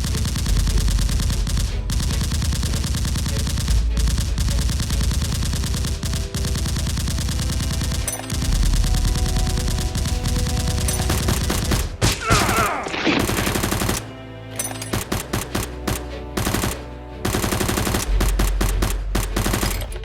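Rapid automatic gunfire in long sustained bursts. About two-thirds of the way through it breaks into short bursts with gaps, then runs continuously again near the end.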